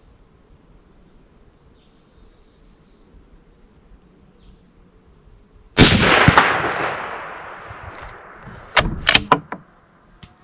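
A single shot from a Sako S20 bolt-action rifle in .308 Winchester, one loud crack about six seconds in, followed by a long rolling echo that fades over two to three seconds. Near the end come a few sharp metallic clicks as the bolt is worked.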